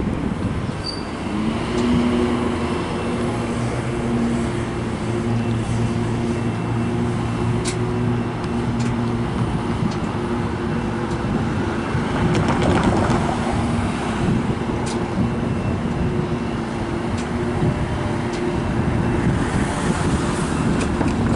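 Diesel locomotive engine running with a steady, even hum as an Amtrak passenger train approaches slowly, mixed with general traffic noise.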